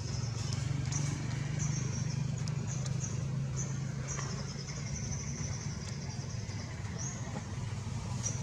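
A steady low rumble like engine or traffic noise, with short high-pitched squeaks that come again every half-second to a second: a baby monkey's hungry squeals.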